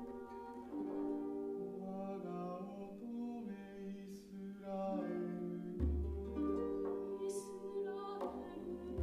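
Slow instrumental background music of held notes and gently changing chords, with a deep bass note coming in about six seconds in.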